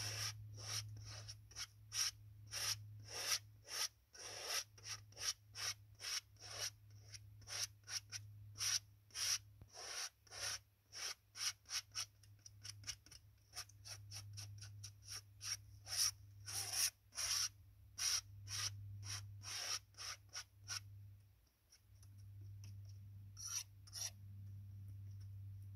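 Palette knife scraping and spreading oil paint in short repeated strokes, about two a second, growing sparse in the last few seconds.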